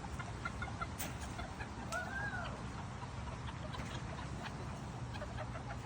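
Chickens clucking, with one drawn-out call that rises and falls about two seconds in, a few short high clucks before it and a couple of sharp clicks.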